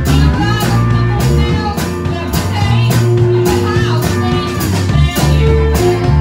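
Small rock band playing live: a drum kit keeping a steady beat with cymbal hits about every half second, an electric bass, and a guitar, with a woman singing over them.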